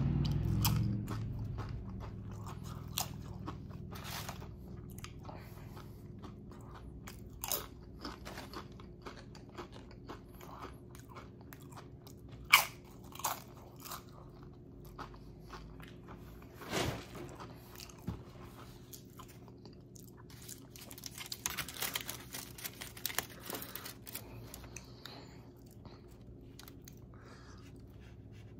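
Close eating sounds: crisp crunches of tortilla chips being bitten and chewed, with wet chewing between them. The crunches come irregularly, with a loud one about twelve seconds in and a quick run of them a little past twenty seconds. A faint steady low hum sits underneath.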